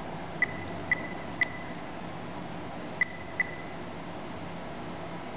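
Cardiopad tablet's touchscreen keyboard giving short key-press beeps as letters are typed: three about half a second apart, then a pause, then two more.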